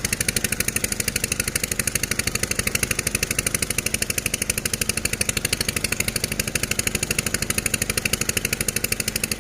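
Diesel engine of heavy earth-moving machinery running steadily at constant speed, with a rapid, even knocking pulse.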